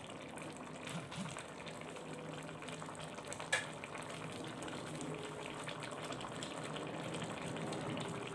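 Chicken curry with sour bamboo shoots simmering and bubbling steadily in an electric wok, with a single sharp click about three and a half seconds in.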